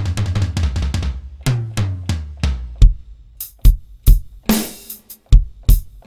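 Sampled drums from the Korg Triton's Standard Kit played on a keyboard: a quick run of hits for the first couple of seconds, then loud, spaced kick and snare strikes with a cymbal crash about four and a half seconds in.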